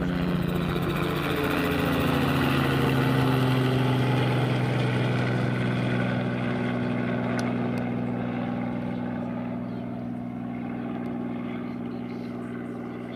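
Small helicopter flying overhead: a steady engine and rotor drone that drops slightly in pitch as it passes, loudest a few seconds in, then slowly fading as it flies away.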